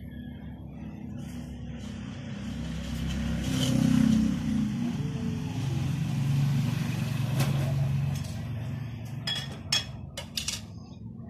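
A motor vehicle passing, its noise swelling to a peak about four seconds in and then fading, followed by a few brief sharp noises near the end.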